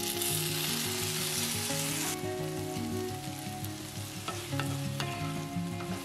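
Soy sauce and syrup poured onto frying potatoes in a hot cast-iron skillet, hissing loudly for about two seconds, then settling to a softer sizzle as the potatoes are stirred with a wooden spatula, with a couple of light knocks on the pan. Soft background music plays underneath.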